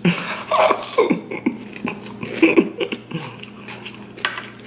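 Close-up eating sounds: a forkful of instant ramen noodles coated in crushed hot Cheetos slurped in and chewed, with wet mouth clicks. Short hummed vocal sounds come through the first three seconds, and the sound thins to quieter chewing clicks after that.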